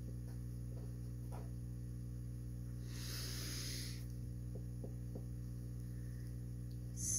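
Steady electrical mains hum, with faint scratching from a felt-tip marker writing on paper. A brief hiss lasts about a second, starting about three seconds in.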